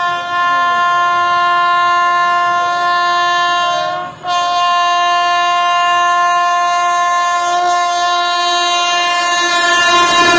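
Horn of a WAP7 electric locomotive sounding as the train approaches at speed: a long, steady blast, a brief break about four seconds in, then a second long blast.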